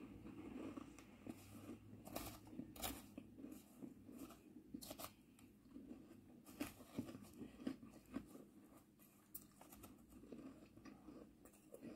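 Faint, irregular crunching of crushed ice being chewed, mixed with a metal spoon scraping and digging through crushed ice in a plastic bowl.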